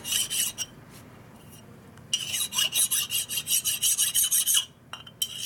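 Fine, dull hand file rasping in quick back-and-forth strokes across a Knucklehead engine piston's skirt, knocking off high spots and burrs. A short run of strokes at the start, a quieter pause, then a longer fast run that stops briefly near the end before starting again.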